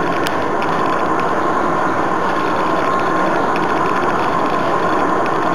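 Glass-floored lift car of the Sky Tower running down its shaft, heard from inside the car: a steady rushing noise with a thin, steady whine and a few faint clicks.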